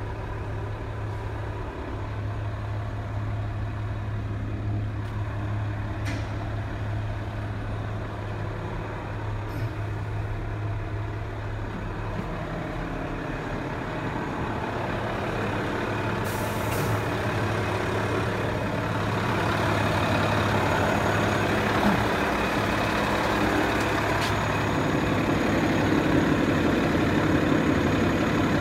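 Volvo L150H wheel loader's diesel engine idling steadily, growing gradually louder from about halfway through.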